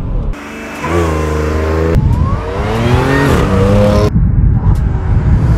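Audi B8 S4's supercharged 3.0-litre V6 with an aftermarket cold air intake, accelerating with its engine note rising in pitch.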